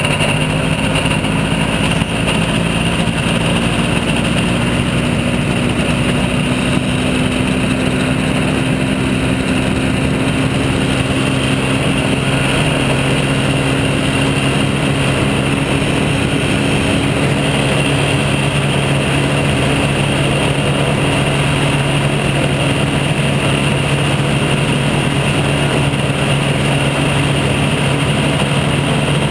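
Weight-shift microlight trike's engine and pusher propeller running steadily at low power while taxiing. Its note rises slightly in the first couple of seconds, then holds steady.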